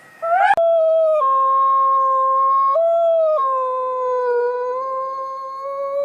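A dog howling: one long, loud howl that rises at the start, then holds a steady pitch with a few abrupt small steps up and down.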